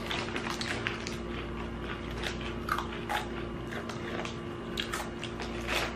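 Mouth-close crunching and chewing of Flamin' Hot Cheetos: a run of short, irregular crisp crunches. A faint steady hum runs underneath.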